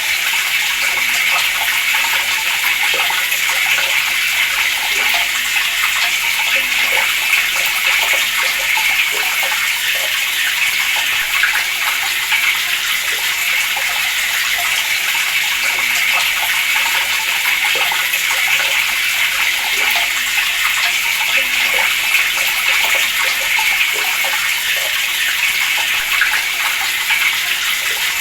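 Water running steadily from a tap, an even splashing rush.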